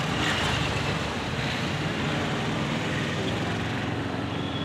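Road traffic passing close by: a steady noise of vehicle engines with no clear breaks.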